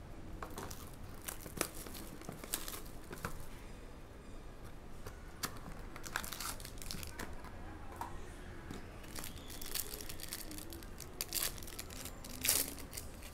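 Hands opening a cardboard trading-card hobby box, then crinkling and tearing open the foil pack inside: a run of irregular crackles and rustles, with the loudest tear near the end.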